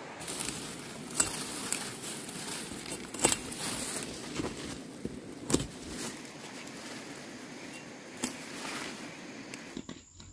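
Pumpkin leaves and vines rustling as pumpkin tops are picked by hand, with a few sharp snaps of stems breaking.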